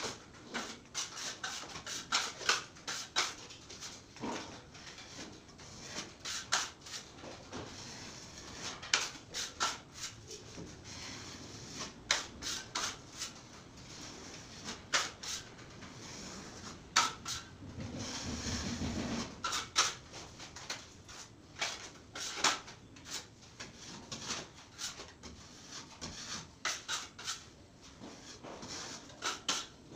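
Putty knife scraping and tapping against a fibre-cement ceiling board as joint compound is spread over a gauze-taped seam, in many short, irregular strokes. A brief low hum comes a little past the middle.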